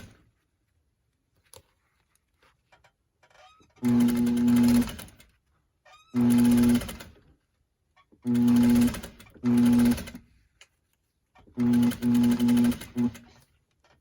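Electric sewing machine stitching in five short runs with brief stops between them, its motor giving a steady hum. Faint clicks of handling between runs, as pins are pulled from the seam.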